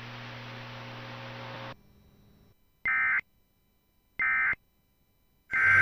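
Emergency Alert System end-of-message data bursts: three short, buzzy digital tone bursts about a second and a third apart, the third near the end, marking the close of the alert. Before them, a steady broadcast hiss and hum cuts off into silence under two seconds in.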